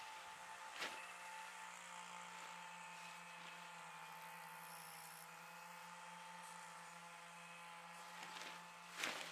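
A faint, steady hum, with a sharp click about a second in and another near the end.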